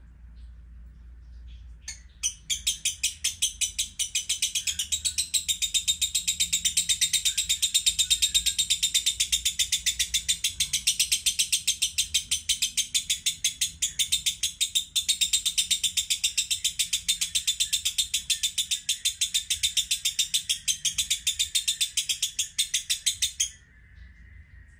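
A caged masked lovebird chattering in one long, unbroken, rapid string of high notes. It starts about two seconds in and stops abruptly near the end.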